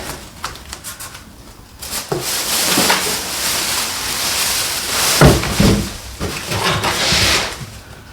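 Handling noises from working on a TV on its wall mount: rustling and scraping with a few knocks, the loudest a little past the middle.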